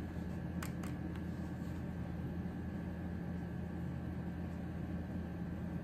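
Steady low hum and hiss of room noise, with two or three faint light clicks in the first second as a dotting stylus dips into a plastic paint palette.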